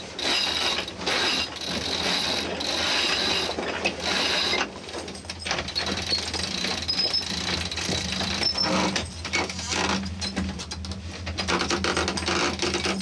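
Sailboat's self-tailing sheet winch being cranked with a winch handle to haul in the sheet, its pawls clicking in a rapid ratchet. Short pauses come between turns in the first few seconds.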